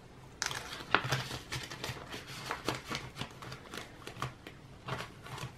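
Paper banknotes rustling and a clear plastic cash-envelope pocket crinkling as a stack of bills is handled and slid into a budget binder, in short irregular bursts.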